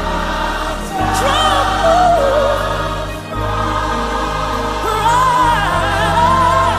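Gospel song: a lead voice sings long notes with melismatic runs over choir and a steady bass line.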